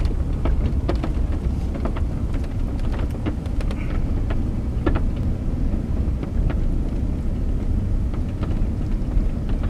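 Truck driving on a rough dirt track, heard from inside the cab: a steady low rumble of engine and tyres, with frequent small clicks and knocks over it.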